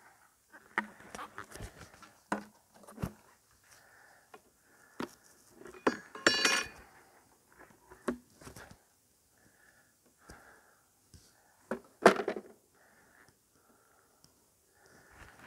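Wooden beehive parts being handled as the hive is opened: scattered knocks, taps and scrapes of wood on wood, with a brief squeaky scrape about six seconds in and a sharp knock about twelve seconds in.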